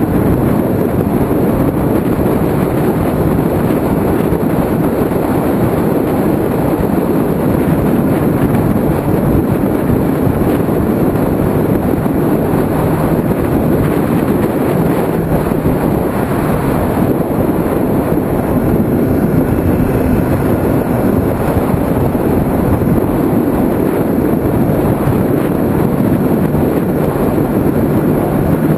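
Kawasaki ZX-6R inline-four engine running under way through a string of bends, muffled inside the GoPro housing on the mirror arm, under steady wind rush over the microphone.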